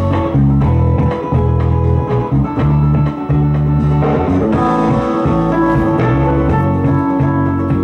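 Recorded music with a steady drum beat and prominent bass notes, played through a TPA3116D2 mono class-D amplifier board into a single speaker. The owner judges its sound fine in the bass but lacking in treble.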